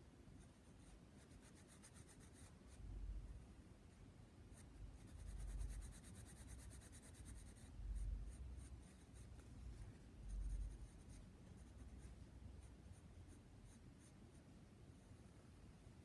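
Faint scratching of a pencil on sketchbook paper in quick small strokes, densest about a second in and again around the middle, then sparser light ticks. Four soft low thumps, about two and a half seconds apart, are the loudest sounds.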